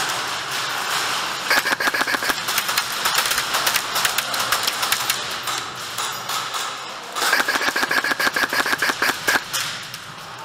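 Airsoft rifle firing long full-auto bursts: two runs of rapid, even clicks with a high whine. The first starts about a second and a half in and lasts several seconds. The second, shorter one comes about seven seconds in.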